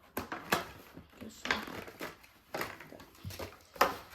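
Cardboard and packaging being handled as the contents of a collection box are taken out: a handful of short rustles and light knocks, the loudest near the end.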